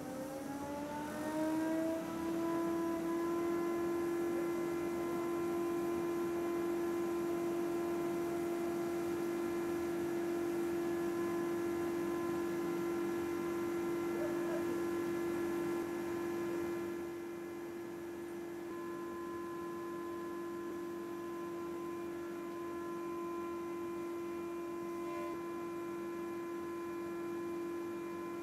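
Thickness planer's motor and cutterhead spinning up with a rising whine over the first two seconds, then running steadily at full speed with no wood being fed. The level drops slightly about two-thirds of the way in.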